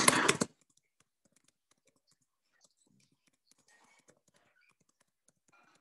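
A voice breaks off about half a second in, then near silence with faint scattered clicks and a brief faint murmur.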